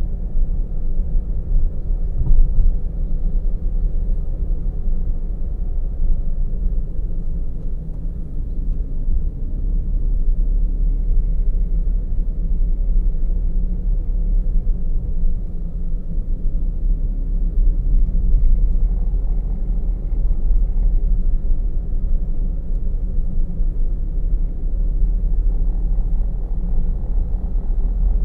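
A car driving along, heard from a camera mounted in the car: a steady low rumble of road and engine noise.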